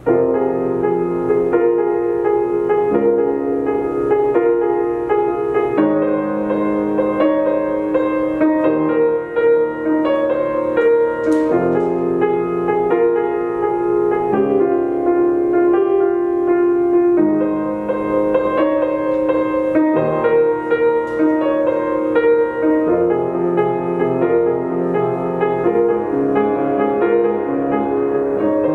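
Solo grand piano playing, starting right at the beginning: held chords that change every few seconds.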